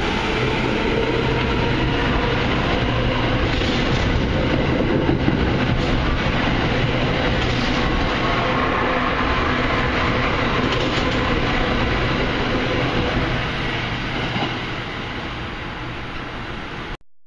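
NJ Transit Arrow III electric multiple-unit train running past along the platform, a steady, loud rolling noise that fades over the last few seconds as the train draws away, then cuts off abruptly just before the end.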